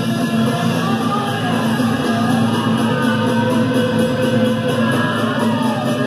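Rock band playing live in a club: an electric guitar lead with bending notes over bass and drums, in an instrumental break with no singing.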